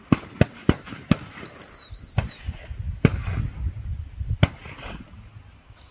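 Shotguns firing in a rapid, uneven series of sharp reports, about seven in a few seconds, from several guns at a duck shoot. Two short falling whistled notes come about a second and a half in.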